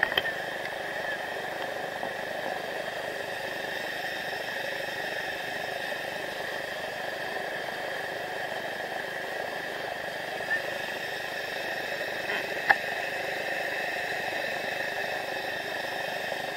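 River rapid rushing steadily, a constant hiss of whitewater. A single sharp click about three-quarters of the way through.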